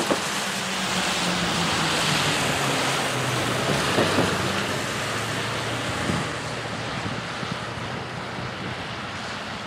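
Freight train's GE diesel locomotives approaching with a steady low engine drone, mostly buried under loud wind rushing over the microphone in a snowstorm, with a few gust thumps near the start and about four seconds in.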